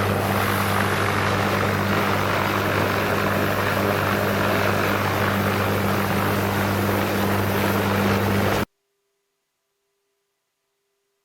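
Helicopter in flight heard from inside the cabin: a steady, loud rotor and engine drone. It cuts off abruptly about eight and a half seconds in, leaving near silence with a faint steady tone.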